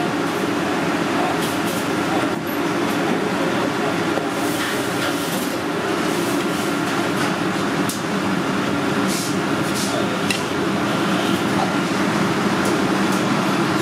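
Steady mechanical rumble of a busy restaurant kitchen, with a few faint taps and scrapes of a cleaver on a wooden cutting board as cooked conch is sliced.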